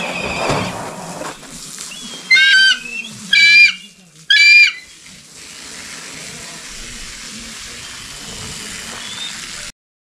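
Bald eagle calling: three loud, high, quavering calls, each about half a second long and about a second apart.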